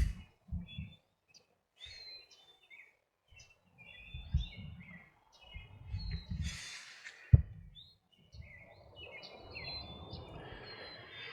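Several small songbirds chirping and trilling, with scattered low thumps and one sharp knock about seven seconds in.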